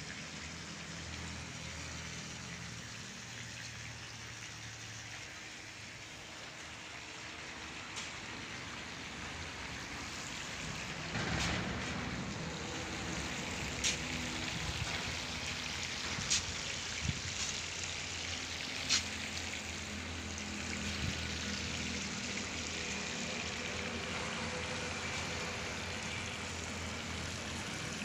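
Steady hissing noise, louder from about eleven seconds in, with a handful of sharp ticks scattered through the second half.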